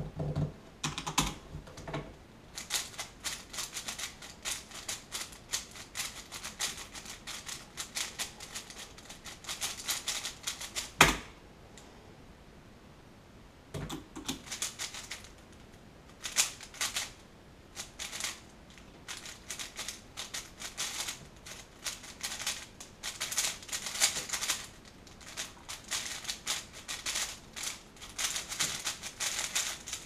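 Rapid clicking and clacking of a Cubicle Wuque M 4x4 speedcube being turned fast, in dense bursts. There is one loud knock about eleven seconds in, then a couple of seconds of quiet before the fast turning starts up again.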